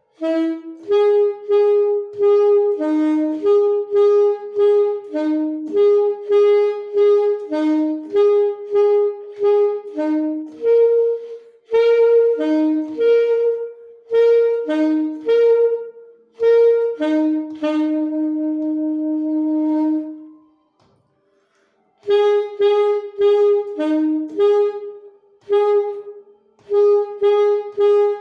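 A solo wind instrument playing a simple melody slowly in short, separated notes, with one long held note and a brief pause past the middle before the tune resumes.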